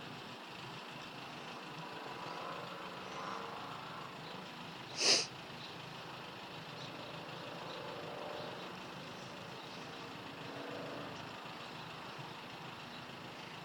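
Vehicle engine idling faintly and steadily, with one short, sharp hiss about five seconds in.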